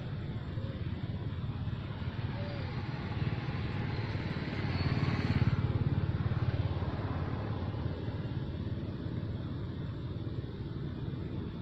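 Low rumble of a passing motor vehicle, swelling to its loudest about halfway through and then fading.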